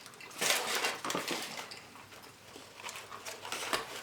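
Soft irregular rustles and light taps of fast food and its wrappers being handled, a little louder in the first second.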